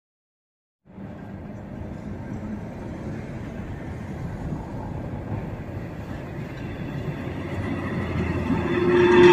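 Vintage electric tram running along a cobbled street toward the listener, its rumble starting abruptly about a second in and growing steadily louder as it comes close. Near the end a steady whine sets in over the rumble.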